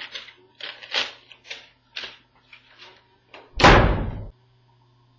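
Paper being torn up in a quick series of rips, then a door slammed shut about three and a half seconds in, the loudest sound.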